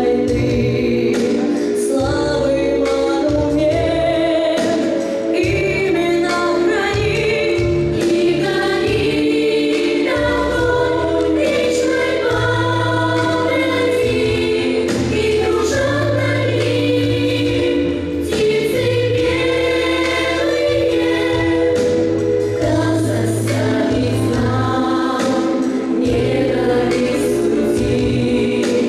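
Choir singing a song: several voices in harmony, holding sustained notes over a low bass line.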